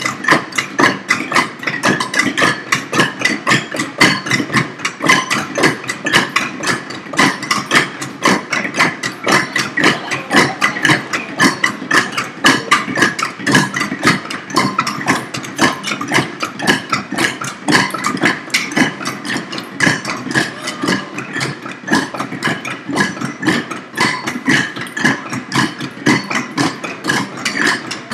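Tongatong bamboo stamping tubes, many played at once: the tubes are struck down on wooden blocks, giving a dense, continuous clatter of hollow knocks.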